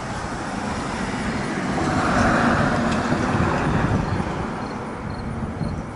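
A road vehicle passing by, its tyre and engine noise swelling to a peak a couple of seconds in and then fading away.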